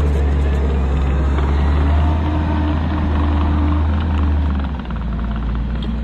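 Compact track loader's diesel engine running steadily with a deep low rumble, which eases slightly about five seconds in.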